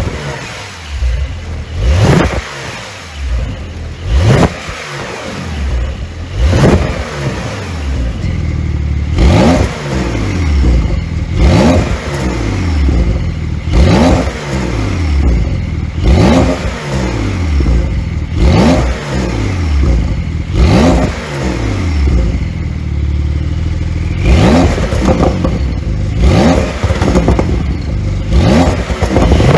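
2020 Porsche 911 Carrera S (992) twin-turbo flat-six being blipped over and over while standing, about a dozen revs each two to two and a half seconds apart, every one rising and then falling back. The exhaust crackles and pops as the revs drop.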